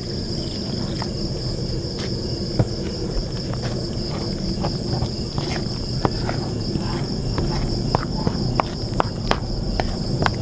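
A metal spoon stirring curry powder and water into a thick paste in a plastic bowl: scraping strokes and short clicks against the bowl, coming more often in the second half. A steady high chirr of crickets runs underneath.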